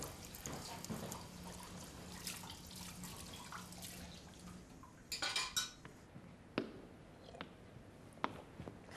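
Dishes being washed at a kitchen sink: water from the tap splashing, with light clinks of crockery and a short burst of running water about five seconds in. A few sharp knocks follow in the second half.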